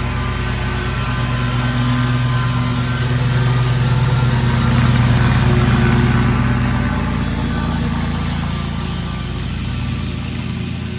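Toro Proline 36-inch commercial walk-behind mower's engine running steadily while cutting grass. It grows a little louder near the middle, then eases off.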